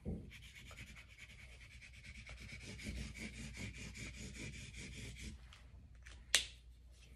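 The side of a peeled crayon rubbed quickly back and forth across paper, a soft scratchy scribbling that stops about five and a half seconds in. A single sharp click follows near the end.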